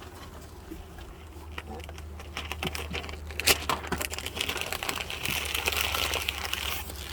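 Hands working the parts of a wooden beehive as it is opened: crinkling and rustling with scattered clicks and light knocks, and a longer, louder rustling scrape about two-thirds of the way through.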